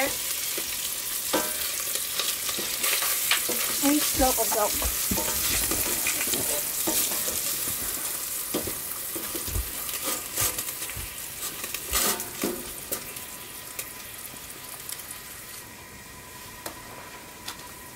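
Sausages sizzling in a pot on a wood stove while a wooden spatula stirs and turns them, with a few sharp knocks and scrapes against the pot. The sizzle slowly dies down.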